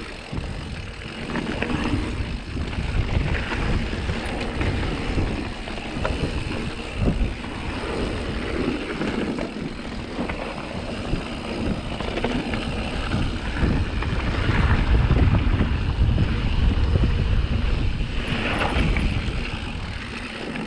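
Mountain bike descending a dirt and gravel trail: tyres rumbling and crunching and the bike rattling over bumps, under heavy wind buffeting on the action camera's microphone. It grows loudest about three quarters of the way through.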